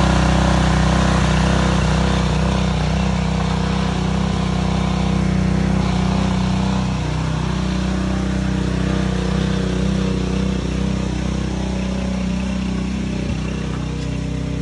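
An engine running steadily at a constant speed, with a steady hiss over it.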